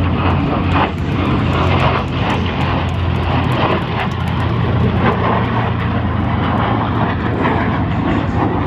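Airplane engine at an air show, a loud steady low drone under a wide rushing noise.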